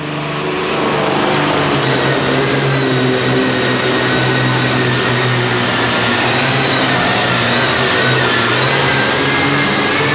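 John Deere pulling tractor's turbocharged diesel engine at full throttle hauling the sled, a high turbo whistle climbing over the first second or so and then holding above the engine.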